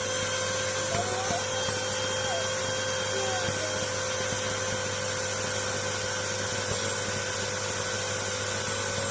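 MAXELLPOWER 1000W bagless cyclonic corded vacuum cleaner running steadily: an even motor whine over the rush of air.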